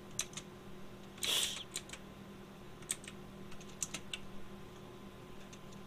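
Computer keyboard keys pressed singly, a dozen or so scattered clicks. A brief louder rush of noise about a second and a half in, over a faint steady hum.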